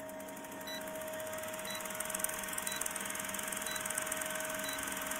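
Vintage film-projector countdown effect: a steady whirring clatter of rapid clicks with a faint constant hum, and a short high beep about once a second marking each number of the countdown.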